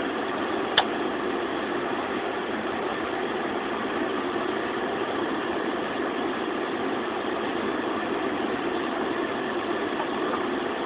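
Steady engine and road noise heard from inside a slowly moving vehicle's cabin, with one short click about a second in.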